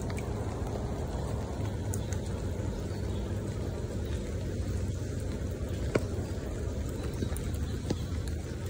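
Rain falling on a shallow pool of standing water: a steady patter with a few separate sharper drip plinks, the loudest about six seconds in, over a steady low rumble.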